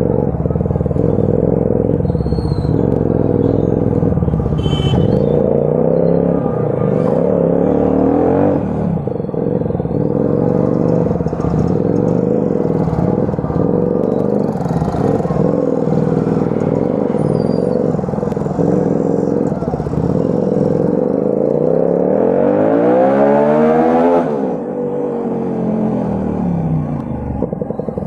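Sport motorcycle with an aftermarket exhaust riding slowly in heavy traffic, its engine pitch rising and falling with the throttle. There is a longer rev up and back down near the end.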